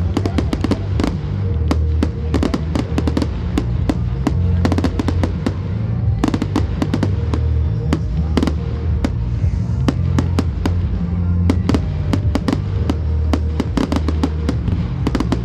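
A fireworks display going off in a rapid, constant stream of crackles and bangs, with bass-heavy music playing underneath.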